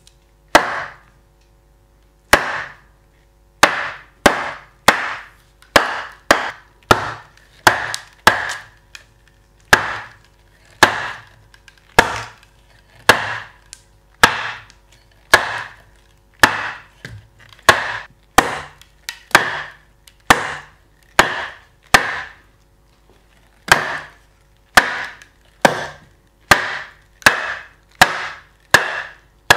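A wooden mallet beating the head of a splitting axe down into a dry cherry log to split it: a steady run of sharp wooden knocks, roughly one a second, each with a short ringing note, and a brief pause about three-quarters of the way through.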